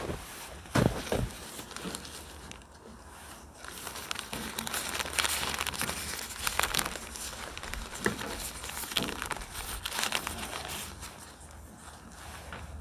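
Tent fabric crinkling and rustling as it is handled and pulled, with a couple of sharp knocks about a second in and the rustling heaviest through the middle.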